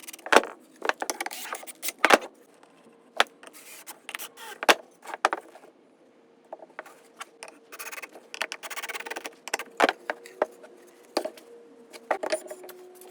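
Irregular knocks, clicks and scrapes of wooden pieces and craft materials being handled on a work surface, with a faint steady hum underneath.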